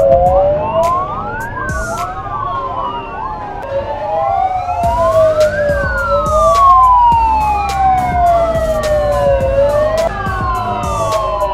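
Sirens of several firefighting motorcycles wailing together, out of step with one another. Each rises quickly and then falls slowly in pitch, about once every four seconds, over a low rumble of motorcycle engines and traffic.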